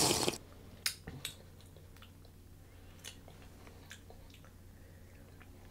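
The end of a sip from a shaker cup, then a person's mouth tasting the drink: a few sharp lip smacks and tongue clicks about a second in, followed by soft, scattered smacks.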